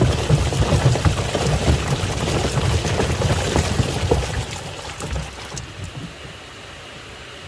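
Water churning and splashing in a washing machine tub, with small knocks mixed in. About five seconds in it dies away to a faint steady hiss.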